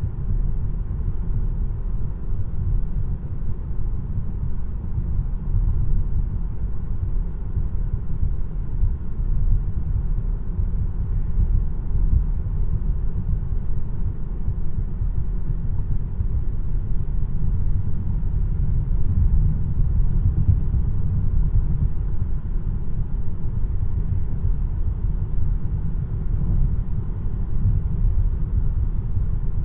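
Steady low road and tyre rumble inside the cabin of a 2026 Tesla Model 3 while it is driving.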